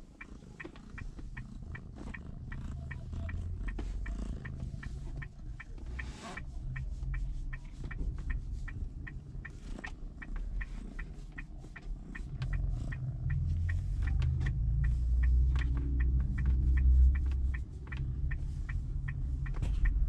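A cat purring in a low rumble that swells and eases in stretches, loudest in the second half. A light, regular ticking runs throughout.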